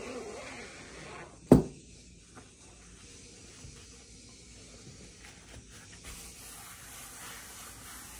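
Zipper on a fabric belt carrying bag finishing its run, then a single sharp knock about one and a half seconds in. Soft rustling of the cloth and a few small taps follow as the bag is folded open and a hand touches the leather strap.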